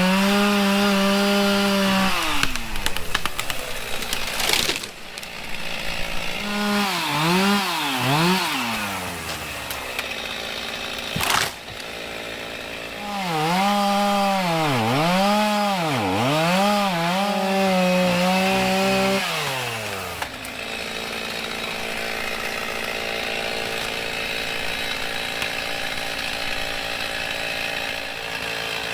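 Gas chainsaw cutting cedar trees: the engine runs at high revs and its pitch dips and recovers over and over as the chain bites into the wood, then settles to a lower, steadier running after about twenty seconds. Two brief sharp noises come through, one around five seconds in and one around eleven.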